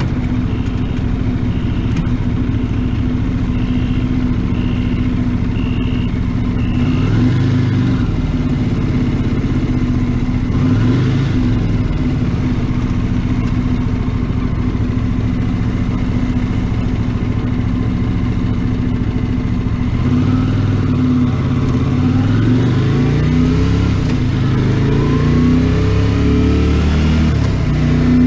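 1982 Honda GL500 Interstate's water-cooled V-twin engine running on the road, its pitch rising again and again as it accelerates, most plainly in the last several seconds. A faint high beep repeats about once a second during the first several seconds.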